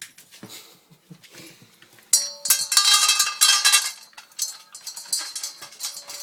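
A small dog (Chihuahua/Italian Greyhound mix) eating fast from a bowl: light clicks of eating at first, then from about two seconds in a loud clatter as the bowl knocks about and rings for a couple of seconds, easing back to lighter clicks near the end.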